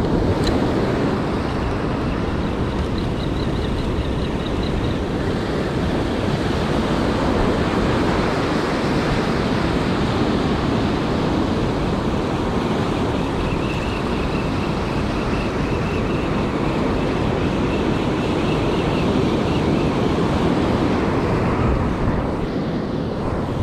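Strong wind rushing over the microphone, with waves breaking and washing up the beach.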